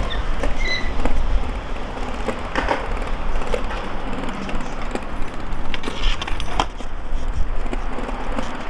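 Skateboard rolling on concrete: a steady rumble of the wheels, broken by a few sharp clacks of the board and trucks.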